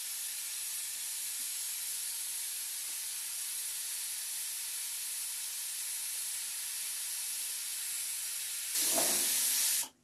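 Steam hissing steadily from a pot on a wood fire. It swells louder near the end, then cuts off abruptly.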